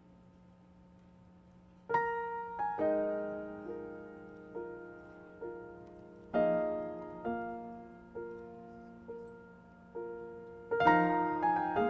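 Slow solo piano introduction: single notes and chords struck and left to ring out, entering about two seconds in after a faint steady hum.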